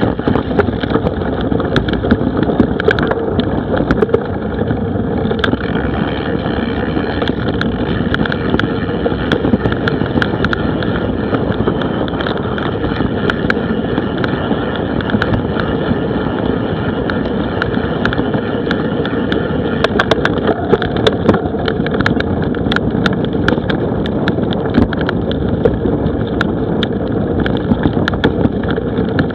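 Mountain bike riding fast down a rough dirt trail, heard through an action camera on the bike or rider: a steady rolling rumble with frequent sharp knocks and rattles as the bike bounces over the ground.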